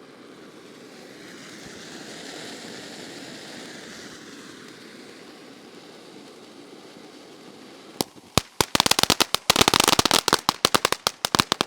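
Ground firework fountain ('Game On' by Happy Family Fireworks) spraying with a steady hiss that swells and eases off. About eight seconds in, single sharp cracks start, and a second or so later they turn into a dense, rapid crackling.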